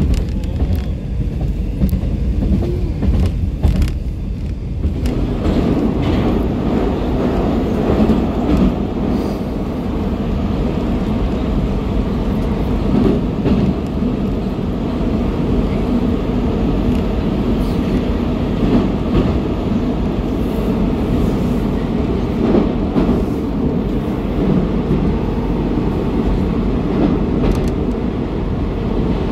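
Moscow Metro train, a Moskva-2019 set, running between stations, heard from inside a car: a steady, loud rumble of wheels and traction gear. About five seconds in the noise grows fuller and a little louder.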